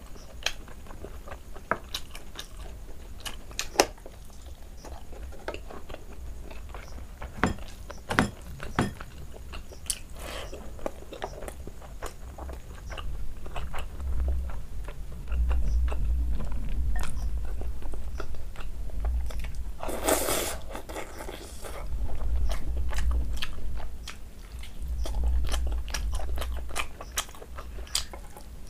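Close-up eating sounds of a person chewing a mouthful of rice and curry eaten by hand: wet chewing, lip smacks and many short sharp clicks. A brief louder, noisy burst comes about two-thirds of the way through, and a low rumble comes and goes in the second half.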